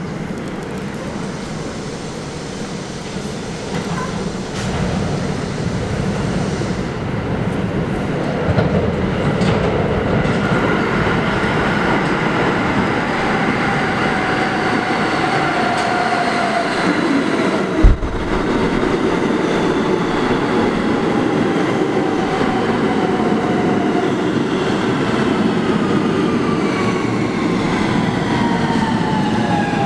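NYC Subway Q train pulling into an underground station: rumble of wheels on rail that builds as it nears, with several motor whines falling slowly in pitch as it slows along the platform. A single sharp thump a little past halfway is the loudest moment.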